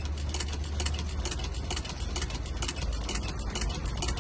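Long-arm shoe-repair sewing machine stitching, its needle clicking rapidly and evenly at about six or seven stitches a second over a steady low hum.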